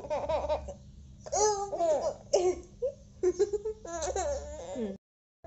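A baby babbling and laughing in short, high-pitched stretches, stopping abruptly near the end.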